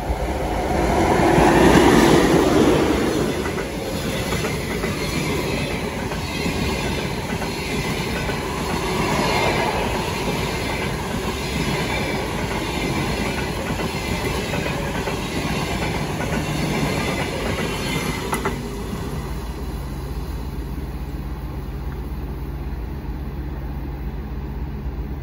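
An express passenger train hauled by an EP2K DC electric locomotive passing at speed. The locomotive goes by loudest about two seconds in, then the coaches roll past with rhythmic wheel clatter. The clatter cuts off about eighteen seconds in as the last coach passes, leaving a steady low hum.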